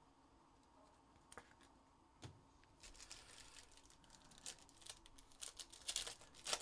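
Foil trading-card pack wrapper being handled and torn open: faint crinkling and small tearing noises, sparse at first, then more frequent and loudest near the end.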